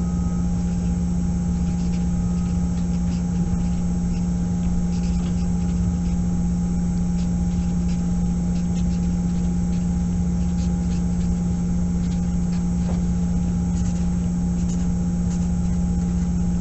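Steady low electrical hum with a fainter higher tone above it, and faint short scratches of a felt-tip marker writing on paper, thicker in the second half.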